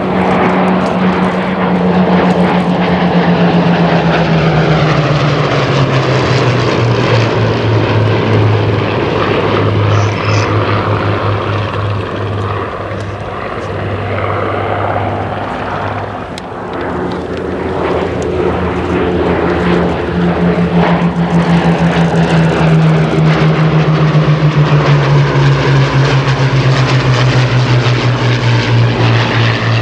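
Pair of Hawker Hurricane Mk I fighters in display flight, their Rolls-Royce Merlin V12 engines loud. The engine note falls in pitch as they pass in the first several seconds, then falls again from about twenty seconds in.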